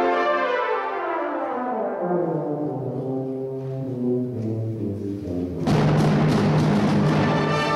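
Brass band playing a passage whose lines fall in pitch down into low held notes; about five and a half seconds in, the full band comes in suddenly and loudly on a sustained chord.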